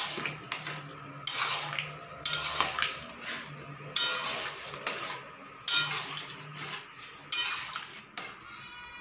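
Metal spatula scraping and clinking against a metal cooking pan while stirring chicken curry, a stroke about every second to second and a half, each sharp at the start and fading out.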